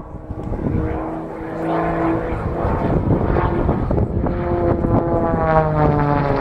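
Zivko Edge 540 aerobatic plane's six-cylinder Lycoming piston engine and propeller droning through aerobatic manoeuvres, the engine note shifting in pitch and rising toward the end.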